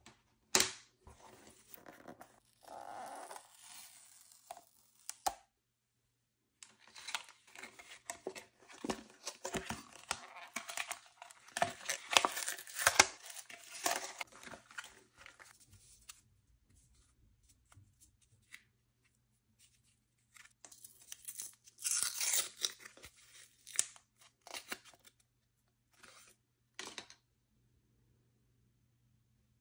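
Paper packaging of an Apple Watch being torn open and handled: irregular spells of tearing, rustling and crinkling with sharp clicks as the paper trays are pulled apart.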